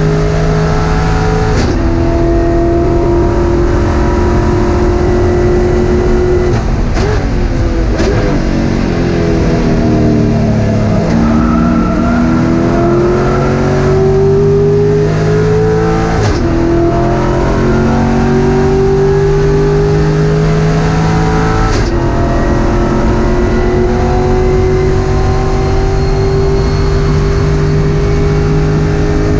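Race car engine heard from inside the stripped cabin, loud and revving hard. Its pitch climbs steadily and drops sharply at each upshift. Midway there are two quick blips as it downshifts under braking, and the note falls to a low before climbing back through the gears.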